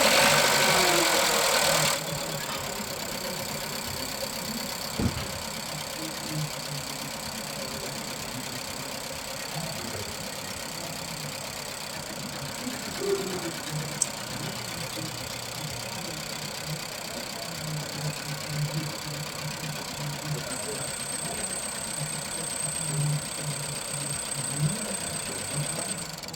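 Nissan Juke engine running at idle with a misfire, the beat uneven and lumpy. It is louder for about the first two seconds, then settles to an idle. The misfire is traced to a cylinder with no compression.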